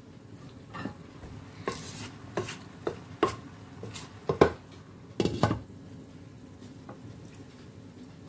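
Wooden spoon knocking and scraping through rice in a frying pan, with a glass pan lid clinking as it is lifted and set back on. A string of separate knocks and clicks over the first five and a half seconds, then only faint steady background noise.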